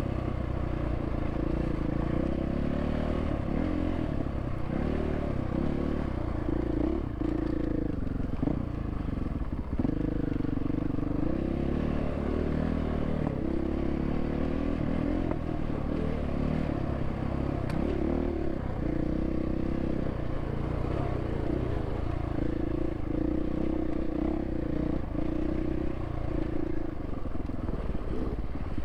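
Dirt bike engine running continuously while riding single track, its pitch rising and falling with the throttle.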